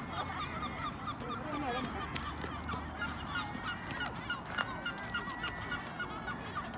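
A flock of waterbirds calling together, many short honking calls overlapping several times a second.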